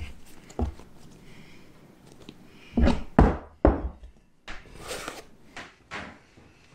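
Dull thuds and knocks of bread dough being kneaded on a wooden benchtop and worked into a glass bowl, with a cluster of heavier thuds about three seconds in.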